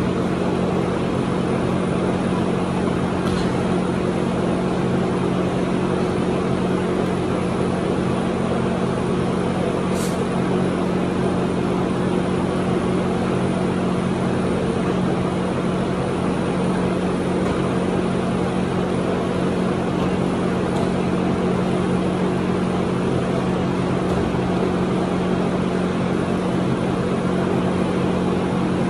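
A steady, unchanging machine drone with a low hum, like a motor running, with a couple of faint sharp clicks about three and ten seconds in.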